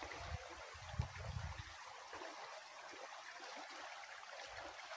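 Shallow creek running steadily, an even rush and trickle of water. A few soft low thumps come in the first couple of seconds.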